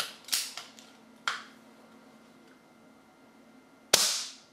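Moderated BSA R-10 .177 air rifle being worked and shot: a few sharp clicks near the start, another click a second later, then a louder sharp crack with a short ringing tail about four seconds in.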